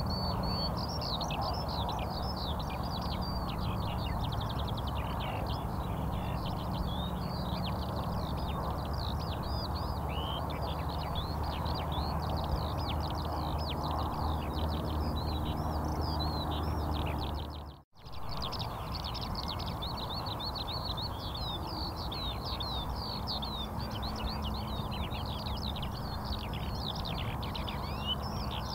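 Many small birds chirping at once in a dense, continuous chorus over a steady low hum. The sound cuts out for a moment about eighteen seconds in, then carries on.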